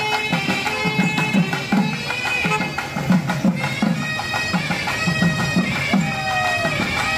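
Loud festival dance music: a reedy wind instrument playing long held notes and sliding melody lines over a steady, driving drum beat.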